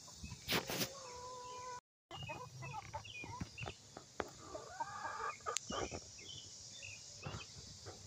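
Backyard chickens clucking, many short calls overlapping. There are two sharp knocks under a second in and a brief dropout about two seconds in.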